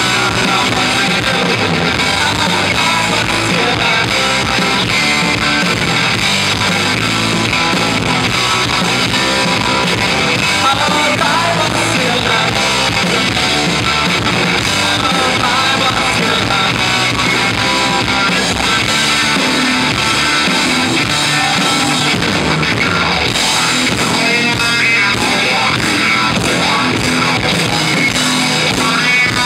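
Live rock band playing loud and without a break: amplified electric guitars, bass guitar and drum kit.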